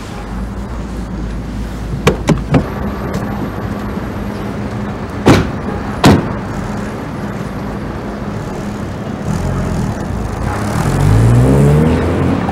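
Taxi doors: a few light latch clicks, then two loud slams about a second apart. Near the end the taxi's engine pulls away, rising in pitch as it speeds up.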